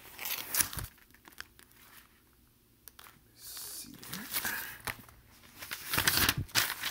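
Paper rustling and crinkling in irregular bursts as sheets of notes are handled, loudest near the end.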